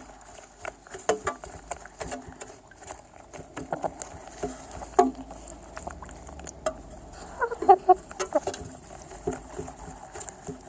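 Chickens pecking at feed: quick, irregular taps and clicks, with a short burst of hen clucking about seven and a half seconds in.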